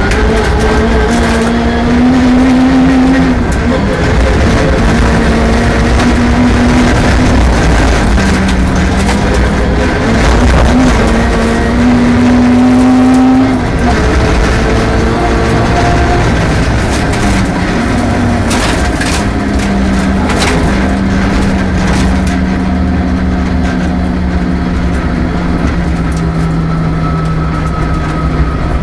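Rally car engine being driven hard: its pitch climbs and drops again and again through the gears. In the second half it settles into a steadier, lower note, with a few sharp knocks partway through.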